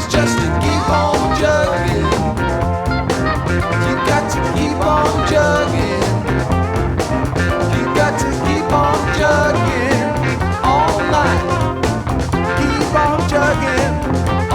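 Rock band recording: a lead line with bending, wavering notes over bass guitar and drums keeping a steady beat.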